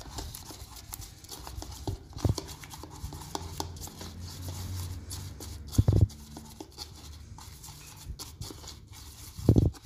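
Tint brush stirring in a plastic hair-dye mixing bowl, mixing blue colour corrector with developer: irregular clicks and scrapes of the brush against the bowl, with a few louder knocks about two seconds in, around six seconds and near the end.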